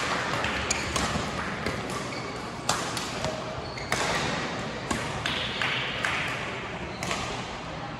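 Badminton rackets hitting a shuttlecock: a string of sharp cracks at irregular intervals, echoing in a large sports hall, with a few short squeaks of shoes on the court floor.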